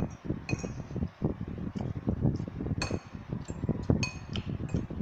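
Metal forks clinking against bowls several times, with sharp ringing taps, over the sound of noodles being slurped and eaten.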